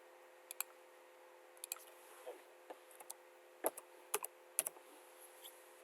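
Faint computer keyboard keystrokes and mouse clicks, about a dozen irregular clicks, over a faint steady hum.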